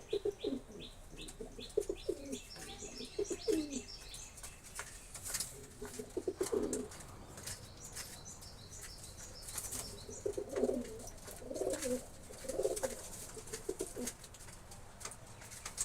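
Domestic pigeons cooing in several bouts of low, throbbing calls. A run of high, quick chirps and scattered sharp flaps or clicks sound between the coos.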